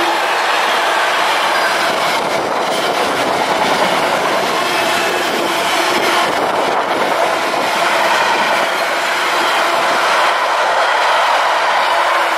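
Container wagons of an intermodal freight train passing close by at speed: a steady, loud rush and clatter of steel wheels on the rails.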